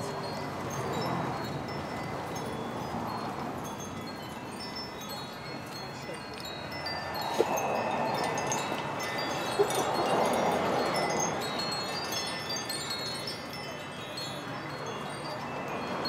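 Metal-tube wind chimes ringing, with many light high tones struck at random over a steady background murmur.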